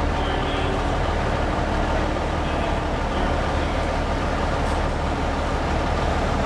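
Fire engine's diesel engine running at low speed with a steady low rumble as the truck rolls slowly forward and turns, no siren.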